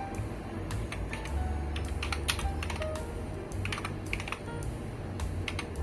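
Irregular clicks of typing on a computer keyboard, over soft background music.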